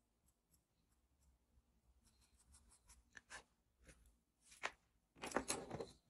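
Drawing tools handled on paper: faint scratches and small clicks from a charcoal pencil, then sharper clicks and a short, louder rustling clatter near the end as tools are put down and picked up.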